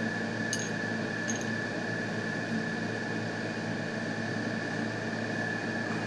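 Steady background hum and hiss with a constant high whine running under it, and a couple of faint light clicks in the first second or so.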